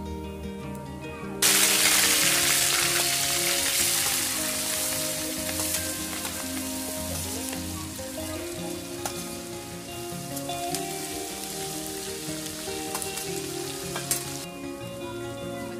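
Hot oil in an iron kadhai breaks into a loud sizzle about a second and a half in as ingredients go in. The sizzle slowly settles into a steady frying hiss with scattered small pops, over background music.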